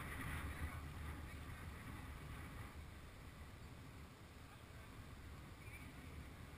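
ATV engine idling, a faint, steady low rumble.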